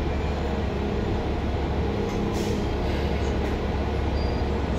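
Steady low rumble and road noise inside a New Flyer Xcelsior XN40 city bus, its natural-gas engine running. A brief hiss comes about two seconds in.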